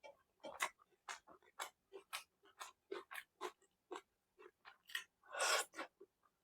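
A person chewing food close to the microphone, with short mouth sounds about twice a second and one longer, louder sound about five and a half seconds in.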